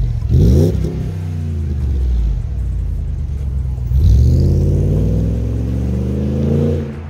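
2006 Jeep Grand Cherokee WK's 5.7-litre V8 revving through a Magnaflow exhaust whose front muffler has been replaced with a glasspack. There is a quick blip about half a second in, then a longer rev climbs from about four seconds in and drops back near the end.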